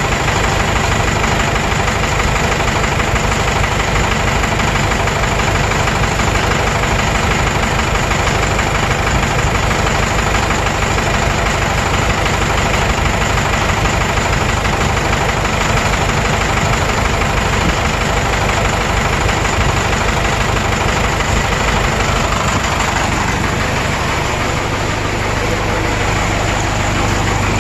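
Cummins 4BT 3.9-litre turbo diesel engine running steadily and very loud, its low rumble growing a little stronger near the end. The engine has low power and blow-by out of the breather tube, which the mechanic takes for worn piston rings.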